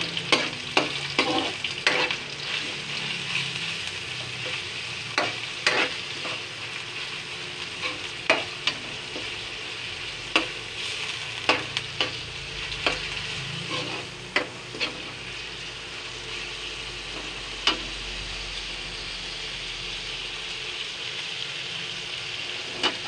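Ground pork sizzling in hot oil in a metal wok as it sautés with garlic and onion, with a metal spoon scraping and clinking against the pan as it is stirred. The clinks come often for the first fifteen seconds or so, then only now and then over a steady sizzle.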